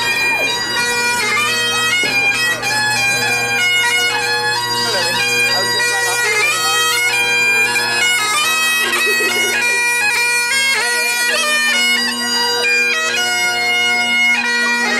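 Several bagpipes playing a marching tune: steady drones under a stepping chanter melody.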